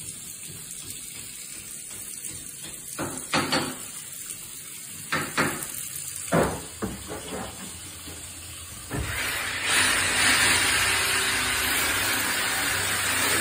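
Tap water running into a stainless steel sink basin as a steady hiss. A few sharp knocks come in the middle, and from about nine seconds in the rush of water grows louder.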